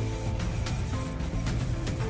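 Instrumental background music: held notes changing in steps, with short percussive hits.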